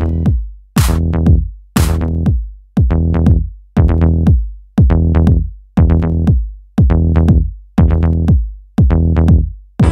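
Electronic background music: a heavy drum-machine bass hit about once a second, each note sliding down in pitch and dying away before the next.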